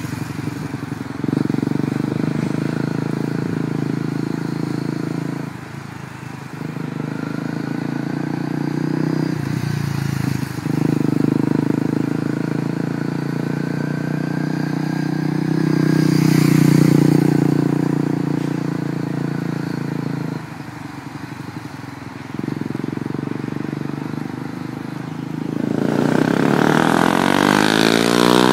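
2011 Honda CBR250R's single-cylinder engine through a Yoshimura slip-on exhaust, ridden at low speed with the throttle opened and eased off several times, loudest about two-thirds of the way in. Near the end the revs climb and the pitch sweeps as the bike passes close.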